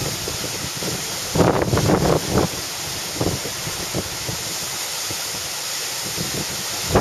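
Hurricane-force wind with the steady rush of storm surf, the gusts buffeting the microphone in heavy blasts about a second and a half in and again near the end.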